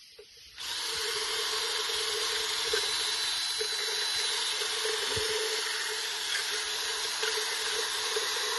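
Power drill spinning a 20-gauge gun-cleaning wire bore brush inside a turtle carapace, scrubbing out dried skin, rot and dirt. A steady whir with a scratchy hiss that starts about half a second in and stops abruptly near the end.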